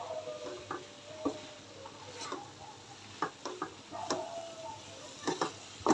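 Metal spatula stirring and scraping in a pan of cooking cabbage, making irregular clicks, taps and short scrapes.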